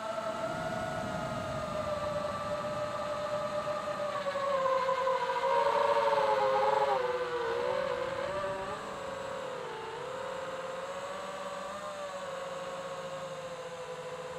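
FPV quadcopter's electric motors and propellers whining, several tones at once whose pitch wavers with the throttle. It swells louder and dips in pitch about five to seven seconds in, then settles to a steadier, lower whine.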